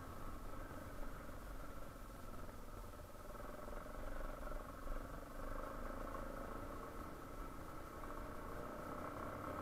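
Yamaha Serow 250's air-cooled single-cylinder engine running steadily at low speed, a constant hum over a low rumble.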